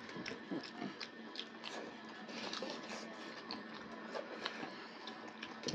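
Quiet eating sounds: scattered small clicks and smacks of chewing and of fingers working rice on steel plates.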